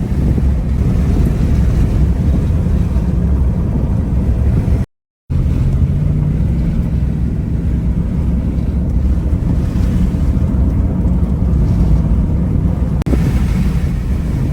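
Loud, steady low rumble of wind and road noise in a moving vehicle. It cuts out for a moment about five seconds in.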